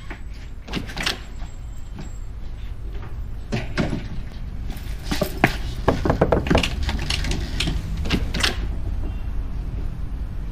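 Footsteps and an interior door being opened: scattered knocks, then a quick run of clicks and knocks from the handle and latch about five to six and a half seconds in.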